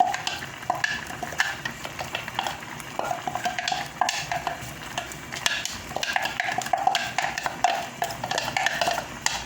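A metal spoon repeatedly knocking and scraping against a cooking pot, many quick clicks each with a brief ringing, as blended okra is spooned into the soup.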